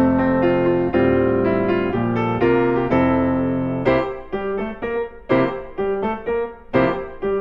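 Background piano music: a steady run of single notes and chords, with the notes coming quicker and more detached about four seconds in.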